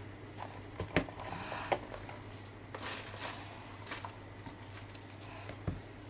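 Cardboard knife boxes and leather pouches being handled and slid across a desk mat: a few soft knocks and a scraping rustle in the middle, over a low steady hum.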